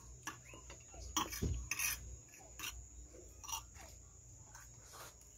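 Metal fork scraping and clicking against a plate several times, in short separate strokes, as food is picked up.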